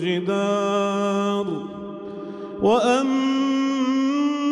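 A male imam chanting Quranic recitation in melodic tajweed style, drawing out long held notes that echo through a large, reverberant mosque hall. The first note is held for about a second and a half. The echo rings on through a short breath pause, then a new phrase slides up and settles on a higher held note about two and a half seconds in.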